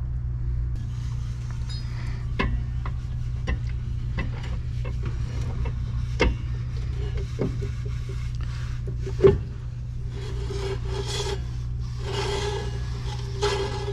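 1963 VW Beetle front brake drum and hub being handled and slid onto the spindle: a string of sharp metal clicks and knocks, one louder knock about nine seconds in, then scraping and rubbing near the end.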